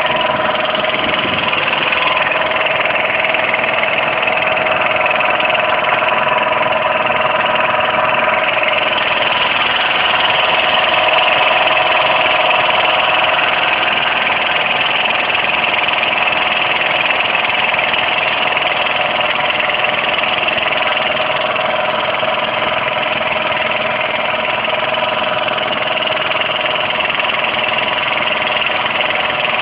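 Motorboat engine running steadily as the boat moves across the water, a constant drone with no change in speed.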